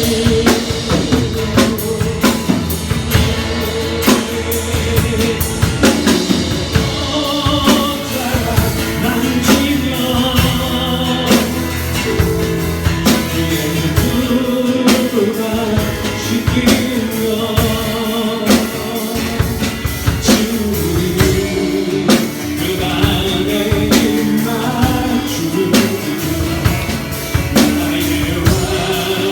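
Church praise band playing a worship song: singing over a drum kit and other instruments, with steady drum hits throughout.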